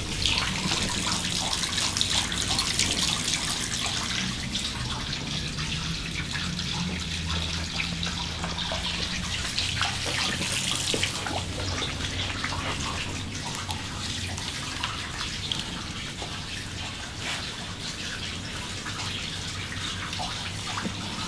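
Water running and trickling along a concrete storm-water drain, with many small splashes and clicks scattered through it.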